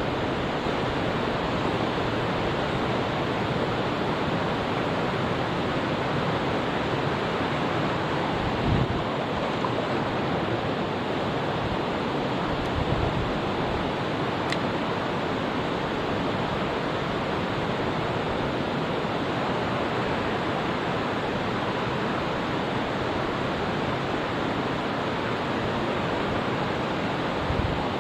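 Mountain stream water rushing steadily over rocks, an even hiss throughout. Two brief low bumps come about a third and halfway through.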